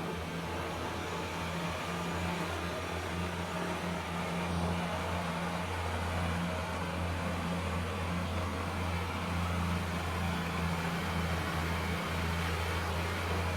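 Kubota BX compact tractor's three-cylinder diesel engine running at a steady speed while the rear-mounted snow blower works, its even rushing noise over the engine's hum.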